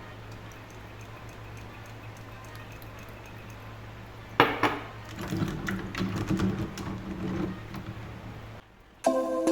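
A steady low hum with faint ticks, then a sudden clatter about halfway through, followed by several seconds of clinking and knocking of dishes and containers being handled. Music starts right at the end.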